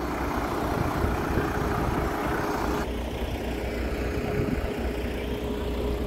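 A motor vehicle's engine idling: a steady hum over a low rumble, with the brighter noise dropping away about three seconds in.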